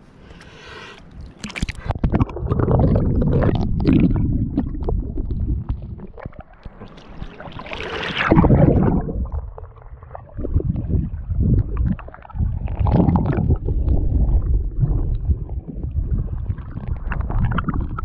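Strong river current rushing and gurgling around an action camera held underwater, in loud, deep surges with splashing as the diver moves through the water.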